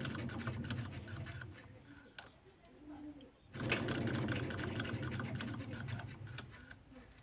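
A small motor-driven rotor spinning inside a wound stator, a fast rattling whir over a steady hum. It runs down and stops about two seconds in, starts up again about a second and a half later, and fades out near the end.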